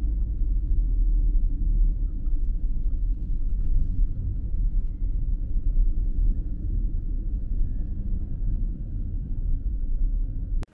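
A car driving along a paved road: a loud, steady low rumble of road and engine noise.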